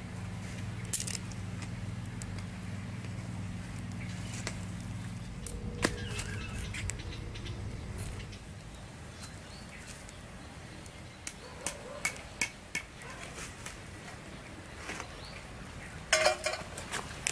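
Wood fire crackling with scattered sharp pops, ending in a burst of metal clanks and rattles about sixteen seconds in as a metal pot is set on a wire grill over the fire. A low steady hum sounds in the first five seconds and then stops.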